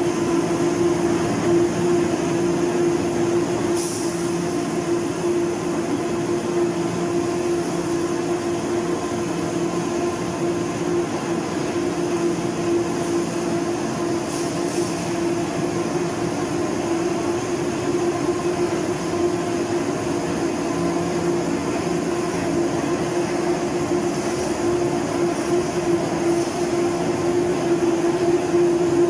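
Aluminium tube production machinery running steadily: a constant mechanical hum with a strong mid-pitched tone, and brief high ticks about 4 and 14 seconds in.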